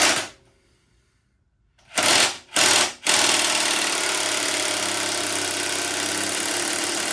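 Impact driver hammering on a 27 mm socket against a seized motorcycle fork top cap bolt. It fires in two short bursts, then runs on steadily for about four seconds. The bolt does not budge.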